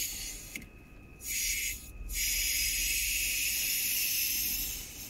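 Aerosol DPF cleaner spraying from its can through a thin extension tube into the exhaust at the AdBlue injector port, to clean a clogged diesel particulate filter. There is a short hiss about a second and a half in, then a longer steady hiss of nearly three seconds that stops shortly before the end.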